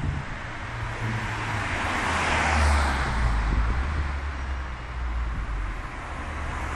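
A road vehicle passing on the street, growing to its loudest about two and a half seconds in and then fading, over a low engine rumble.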